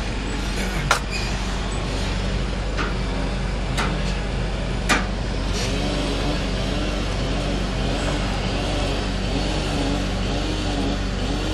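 An engine running steadily, a low drone with a tone that wavers up and down from about six seconds in. A few sharp knocks sound over it in the first five seconds.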